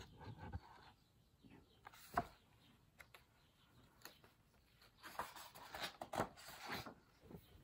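Faint rustling of a hardcover picture book's paper pages being handled, with one soft tap about two seconds in and a longer rustle as a page is turned over between about five and seven seconds in.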